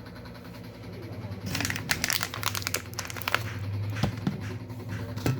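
Plastic packaging being handled and crinkled, in a dense run of sharp crackles starting about a second and a half in, with a few more later, over a steady low hum.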